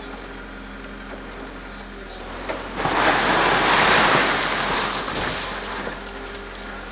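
Mini excavator's engine running steadily while a mass of snow, pushed by a log held in its grapple, slides off a roof in one long rushing pour that builds about two and a half seconds in, is loudest around the middle and fades away.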